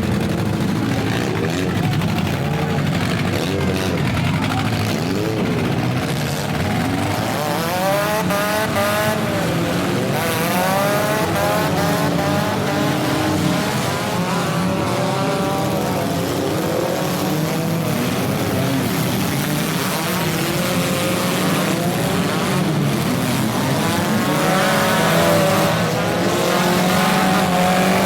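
Several compact-car engines in a demolition derby revving up and down at once, their pitches rising and falling over one another above a steady low rumble.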